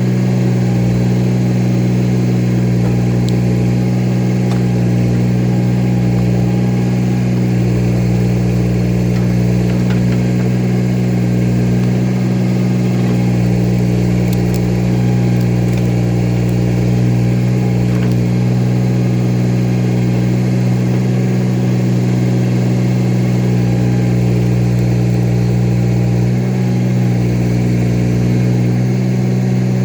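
An engine running steadily at an even speed, without revving up or down.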